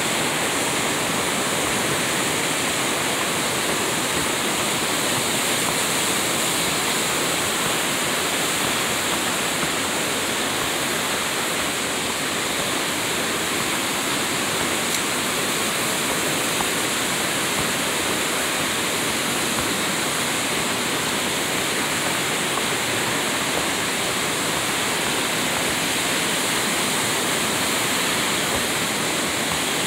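Mountain stream rushing over rocks, a steady rush of white water with no change throughout.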